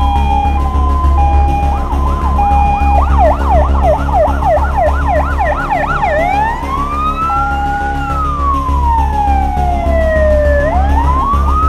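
Several emergency-vehicle sirens sounding at once: a two-tone siren alternating between two notes, a fast yelp sweeping up and down about four times a second from about three seconds in, and a slow wail rising and falling after that, over a steady low rumble.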